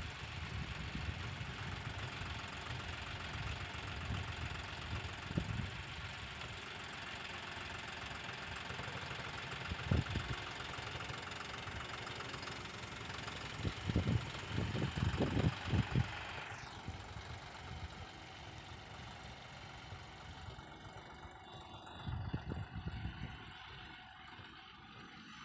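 Diesel tractor engine running as it works a front-end loader carrying a stack of bricks. There are short, louder low surges about ten seconds in, again around fourteen to sixteen seconds, and once more near the end.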